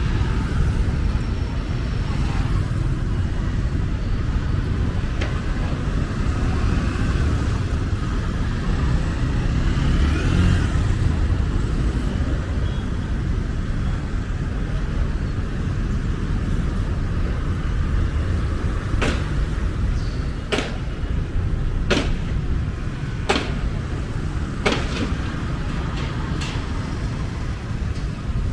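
Street traffic of cars and motorbikes, a steady low rumble of engines and tyres passing. In the second half, a run of sharp clicks comes about once every second and a half.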